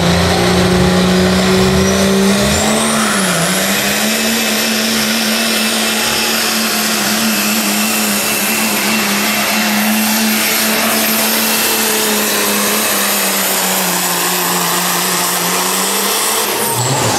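Diesel pickup truck engine running at full throttle under heavy load, pulling a sled. A high turbocharger whistle climbs over the first few seconds and then holds above the steady engine note. Engine and whistle drop away sharply just before the end.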